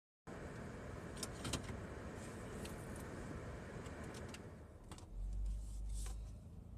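Clicks and light rattles of handling inside a car, over a steady low in-car noise, with a heavier low rumble about five seconds in.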